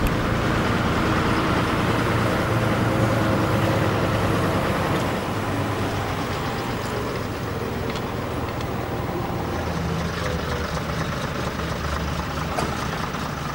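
Diesel engines of classic AEC lorries running. The engine is louder for about the first five seconds, then gives way to a steadier, quieter engine note.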